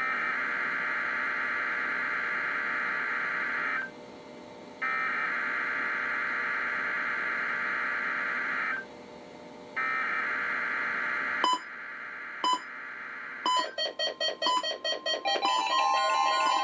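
NOAA Weather Radio SAME alert header: three bursts of buzzy, warbling digital data tones, each a few seconds long and about a second apart. Then several weather radios go into alert, with sharp beeps and chirps, a jumble of pulsing alarm beeps, and near the end a steady single-pitched warning alarm tone.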